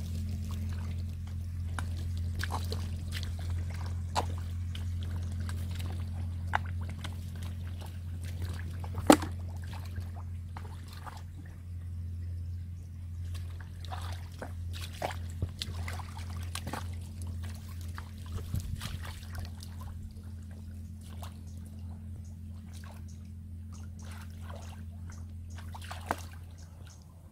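Hands and feet sloshing in shallow muddy water and mud, with scattered wet squelches and small splashes and one sharper splash about nine seconds in, over a steady low hum.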